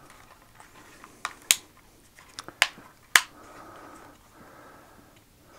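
Plastic arms of a small folding camera drone clicking as they are swung out by hand: about five sharp clicks, spread from about a second in to just past three seconds, over faint handling rustle.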